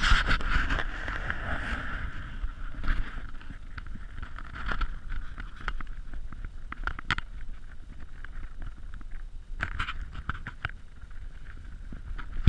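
Golden eagle feeding on a freshly caught brown hare: irregular sharp snaps and tearing sounds as it pulls at the carcass with its beak. A rustling hiss comes near the start and again about ten seconds in, over a steady low rumble of wind on the microphone.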